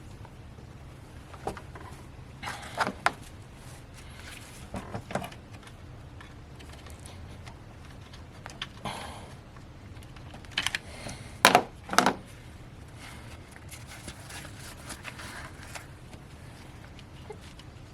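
Scattered clicks, taps and knocks of hand tools working on metal parts in a car's engine bay, in small irregular clusters, with a group of sharp knocks about two-thirds of the way through, over a steady low hum.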